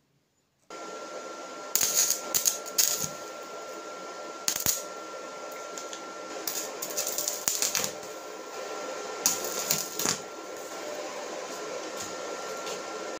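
Electric arc welding of thin steel rods clamped in a vise: a steady hiss with irregular crackling spurts, over a faint steady high whine. It starts suddenly about a second in.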